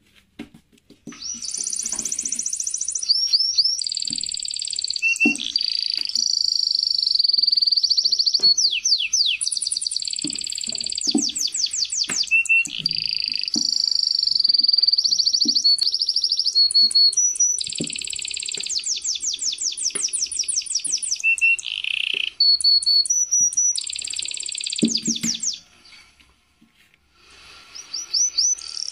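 A songbird singing on and on in fast trills and high steady whistles, breaking off briefly near the end and starting again. Under it come soft low knocks of a wooden rolling pin working dough on the table.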